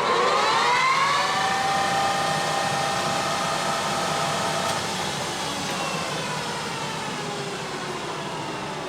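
1981 LeBlond Regal engine lathe's geared headstock spinning up to its 1800 RPM top speed: a whine of several tones that rises in pitch over the first second, holds, then sinks slowly and fades as the spindle slows down.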